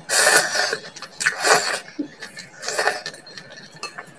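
Mouth noises of eating ginataang kangkong with chopsticks: a loud slurp right at the start and two more noisy slurps over the next three seconds, then a few light clicks of chopsticks against a ceramic bowl near the end.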